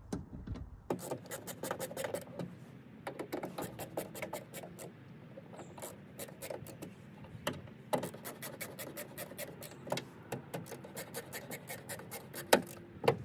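Screws of a plastic speaker adapter bracket being tightened into a car door with a hand screwdriver: irregular small clicks and scrapes, crowding into a quick run of clicks later on, with one louder click near the end.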